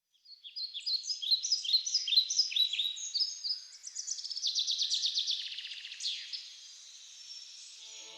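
Birds chirping: repeated short, high, falling chirps overlapping at several pitches, then a rapid trill about halfway through, fading to a faint background near the end.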